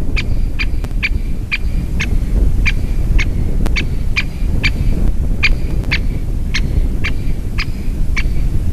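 Great spotted woodpecker giving sharp single 'kik' calls, repeated about twice a second, over a steady low rumble.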